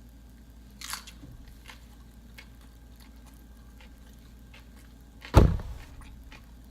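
Faint scattered clicks of kitchen handling, a brief rustle about a second in, and a single dull thump about five seconds in, the loudest sound, like something set down hard on the counter or knocking the microphone.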